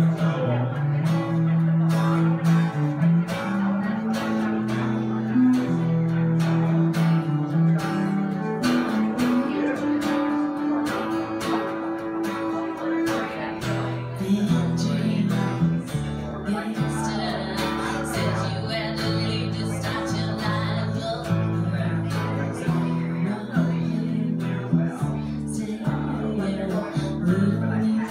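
Live acoustic music: a steadily strummed acoustic guitar over a line of held bass notes from an electric upright bass, with a woman's voice singing.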